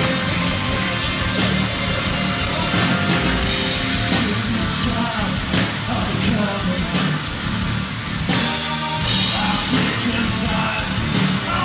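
Live rock band playing loud: distorted electric guitar, bass guitar and drums. A male lead voice sings into the microphone over the band from about halfway through.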